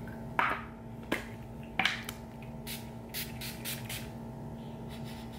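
Pump bottle of facial priming mist sprayed onto the face in several short hissing spritzes, the later ones in quick succession.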